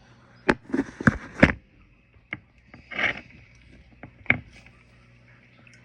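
A few sharp knocks and clatters of objects being handled, with a short scraping rustle about three seconds in.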